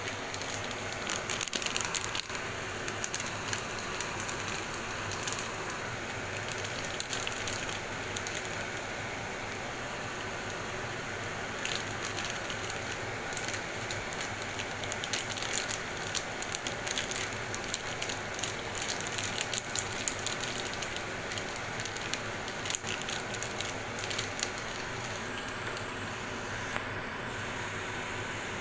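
Tomato sauce simmering in a frying pan with a steady sizzle and crackle, while frozen okra is tipped from a crinkling plastic bag into it.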